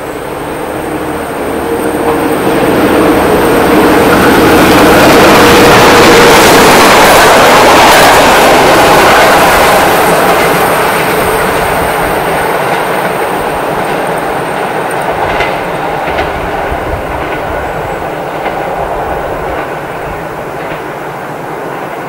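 A PKP class SP32 diesel locomotive and its train approach and pass. The sound builds to its loudest around six to eight seconds in, then slowly fades as the train goes away. Wheels click over rail joints as it recedes.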